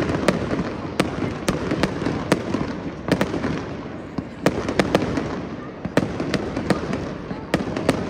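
Fireworks going off: sharp bangs at an irregular pace, about two a second, over a continuous rushing, crackling background.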